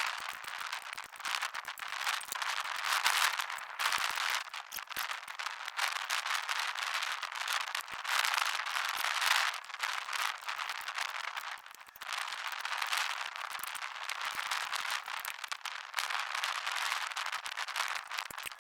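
MIG welder arc crackling steadily, swelling and easing, with a short break about twelve seconds in.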